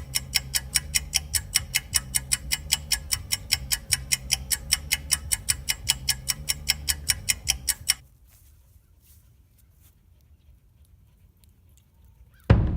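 Rapid, evenly spaced ticking, about four or five ticks a second over a low hum, stopping abruptly about eight seconds in. Quiet follows, and music with drums starts near the end.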